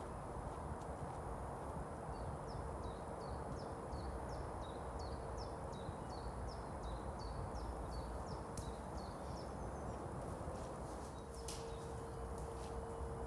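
A small songbird singing a long run of short, high, down-slurred notes, about two or three a second, over steady outdoor background noise, with a couple of sharp clicks later on.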